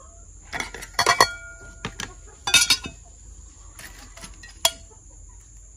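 Metal kitchen tongs and serving utensils clinking against a pot and ceramic plates as fried rolled tacos are served: a handful of separate clinks, some ringing briefly.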